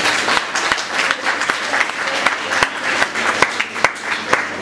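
Audience applauding, many hands clapping unevenly with individual claps standing out.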